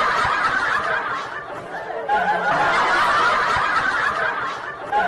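Human laughter, coming in swells that fade and pick up again about every three seconds.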